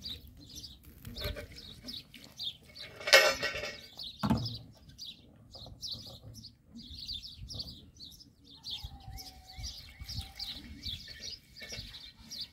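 Birds chirping over and over in short high notes, with one short, loud animal call about three seconds in.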